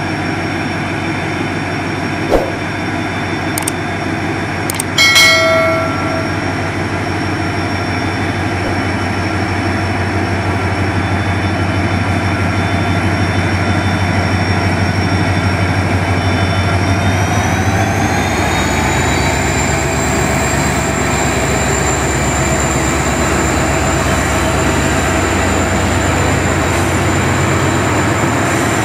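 A WDG4 diesel locomotive's 16-cylinder two-stroke engine runs with a steady low throb as it pulls the train away, and a short high tone sounds about five seconds in. A little after halfway, the engine note and a high whine rise in pitch over a few seconds and then hold as the locomotive opens up.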